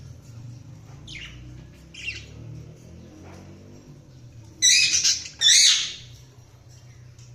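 Budgerigars calling: two faint chirps in the first couple of seconds, then two loud, harsh squawks in quick succession about five seconds in.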